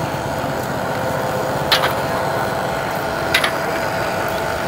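A steady mechanical hum of an engine running, with two short sharp clicks about a second and a half apart.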